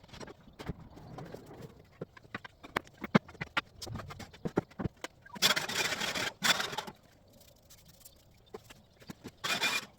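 Workshop cleanup: tools and pieces of wood knocked and set down in an irregular clatter of taps and knocks. Two louder rushing, hissing spells come in, one lasting about a second and a half around five and a half seconds in, the other briefly near the end.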